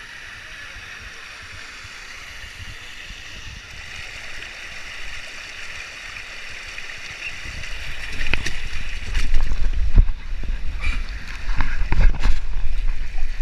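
Water running down a multi-lane water slide, then a rider sliding down it: rushing water with low rumbling and knocks, much louder from about eight seconds in.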